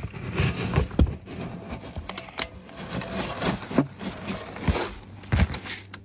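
A metal pail scooping pellets from a plastic tote: the pellets rustle, crunch and clatter against the metal in irregular bursts, with sharp clicks.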